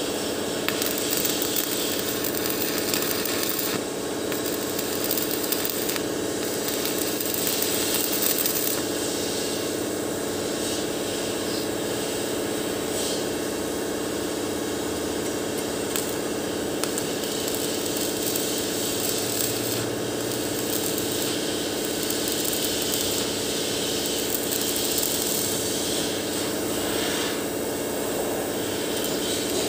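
Stick welding on a steel frame: the arc crackling and hissing unevenly over a steady hum.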